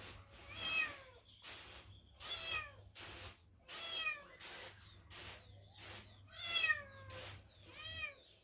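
Kitten meowing over and over, about five calls that each fall in pitch, with short noisy bursts between them.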